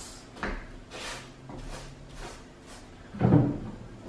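Scattered knocks and taps of kitchen utensils against a tin or bowl as a biscuit base is pressed down, with one louder thump about three seconds in.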